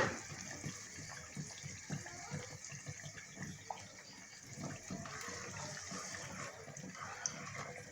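Pot of onions and tomato cooking on the stove, a steady watery hiss with many small irregular pops as it fries and bubbles.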